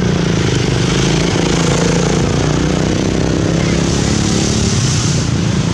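An engine running steadily at idle, a low, even hum with a fast, regular pulse.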